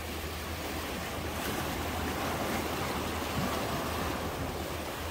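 Small waves of a calm sea washing against shoreline rocks: a steady hiss of surf with a low, even rumble underneath.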